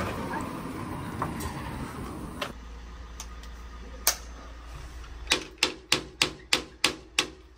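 A quick run of about seven sharp clicks or knocks, roughly three a second, near the end, after two single clicks, over a faint low hum.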